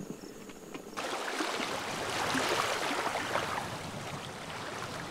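Water flowing and gurgling in a stream, starting abruptly about a second in. Before it there is a faint steady chirp of crickets.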